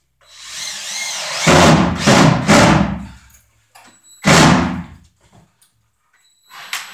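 Cordless drill run in several short bursts while working on the baseboard wiring.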